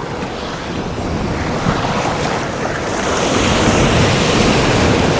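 Ocean surf washing in, with wind buffeting the microphone. The wash grows louder about three seconds in.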